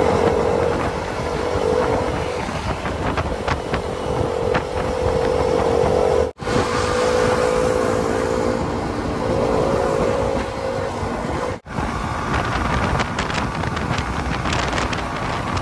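Hero Xpulse 200 single-cylinder motorcycle engine running at road speed, mixed with steady wind rush over the microphone. The sound breaks off briefly twice where the clips are joined.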